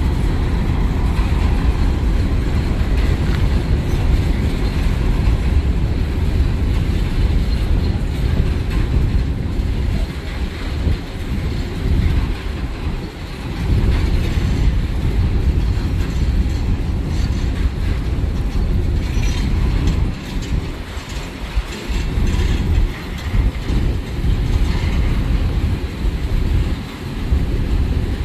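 Empty hopper cars of a CSX freight train rolling past: a steady rumble of steel wheels on the rails, easing briefly about halfway through and again a few seconds later.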